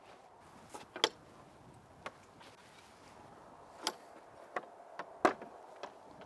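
A handful of short clicks and knocks at irregular intervals, the sharpest about a second in: a wooden churchyard gate and its latch being opened and shut, with footsteps on the paved path.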